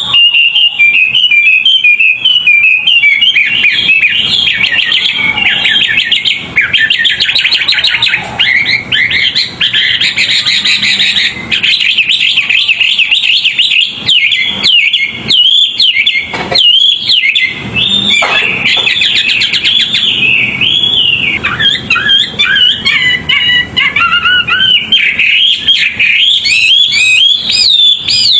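Songbird singing a fast, unbroken run of varied chirps, trills and quick up-and-down notes.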